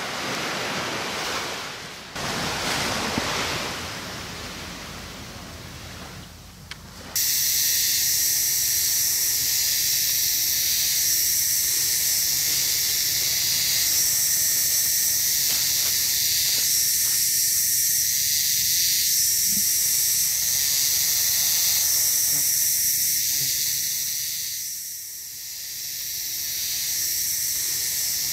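Loud, steady, high-pitched insect chorus that sets in suddenly about seven seconds in, after several seconds of fainter rustling noise.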